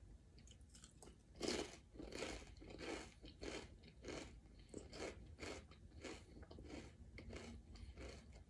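A person biting into a kettle-cooked potato chip and chewing it. There is a crisp crunch about one and a half seconds in, then steady crunching chews at about two a second.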